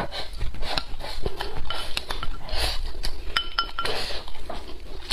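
Wooden chopsticks clicking and clinking against a porcelain rice bowl, with a quick run of ringing taps about three and a half seconds in, amid close-miked chewing.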